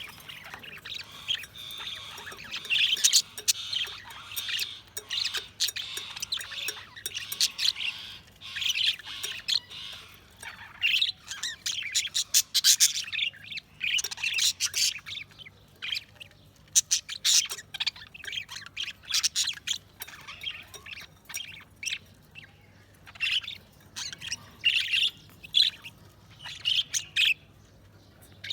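Budgerigars chirping and chattering in quick high runs, nearly continuous for the first half, then in spurts with short pauses.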